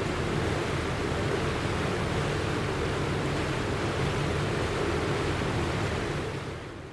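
Steady rushing of water, a flood or surf sound effect, fading out in the last second.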